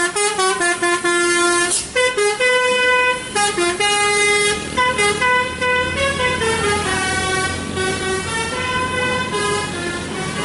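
A truck's musical air horn playing a tune, one held note after another with short breaks between them. A heavy engine hums underneath in the second half.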